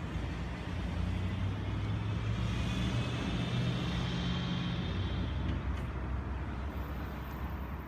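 A road vehicle's engine driving past, growing louder over the first few seconds and fading away about five seconds in.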